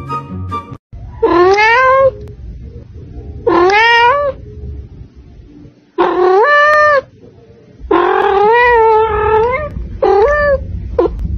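A domestic cat meowing loudly: five long meows a second or two apart, each sliding up in pitch, then a short one near the end.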